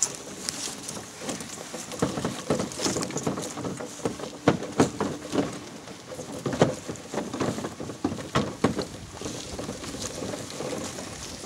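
Little Tikes plastic ride-on fire truck being towed over a grassy lawn: its hard plastic wheels rolling and the body rattling, with many irregular knocks and clatters as it bumps over the uneven ground.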